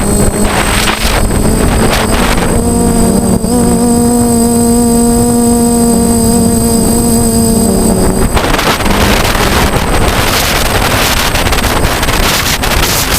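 DJI F450 quadcopter's motors and propellers buzzing in flight, heard from the onboard camera under heavy wind rush. From about two and a half seconds in to about eight seconds in the buzz holds one steady pitch, then breaks up into gusty wind noise.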